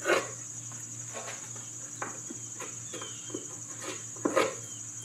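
Putty knife scraping squeezed-out wood glue off the edge of a molding strip on a plywood cabinet door, in a few short strokes, the strongest at the start and about four seconds in. Insects keep up a steady high trill behind it.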